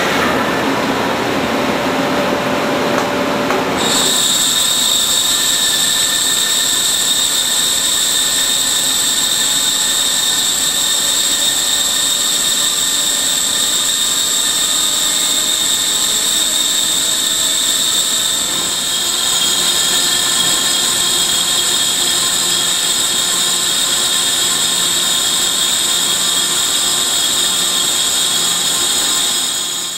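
Gray cast iron disc being turned on a lathe with a solid CBN insert (Sumitomo BNS800): a loud, steady machining sound. A steady high-pitched whine joins about four seconds in, and shifts slightly in pitch a little past halfway.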